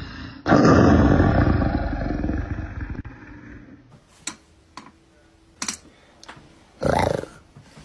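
A big cat's roar, dubbed in as a sound clip. It starts abruptly and loud about half a second in, then fades away over the next two to three seconds. A few sharp clicks follow, and a short loud sound comes near the end.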